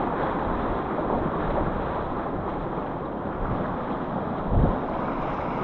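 Whitewater river rushing steadily, with wind buffeting the microphone and a brief louder low buffet about four and a half seconds in.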